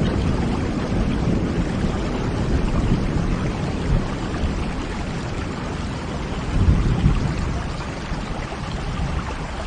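Film sound effect of heavy rain and wind: a steady, noisy wash with a deep rumble underneath and a louder surge about seven seconds in. It cuts off suddenly at the end.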